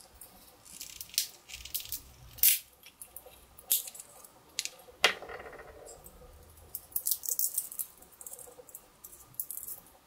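Walnut shell being pried and cracked open with a Victorinox Swiss Army knife tool: a run of sharp cracks, clicks and scrapes of metal on shell, the loudest about two and a half seconds in, then scratchy clicking as the halves are worked apart and the kernel is picked out.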